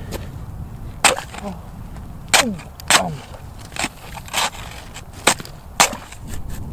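Ice chisel chopping down into a fishing hole that has frozen solid, about seven sharp strikes on the ice at irregular intervals, several with a short falling ring after the hit.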